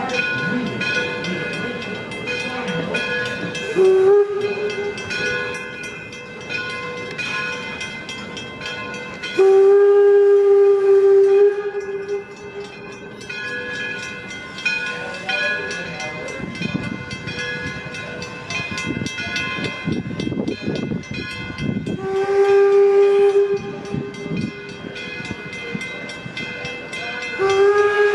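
Steam whistle of the 1897 Baldwin 4-4-0 locomotive Detroit & Lima Northern No. 7 sounding in separate blasts: a short toot about four seconds in, two longer blasts of about two seconds each, and another starting near the end, over the steady noise of the running train.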